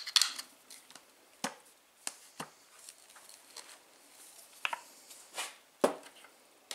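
Scattered light clicks and knocks of metal rocket-motor parts being handled during assembly, with a heavier thud a little before the end as the metal motor casing is stood upright on the table.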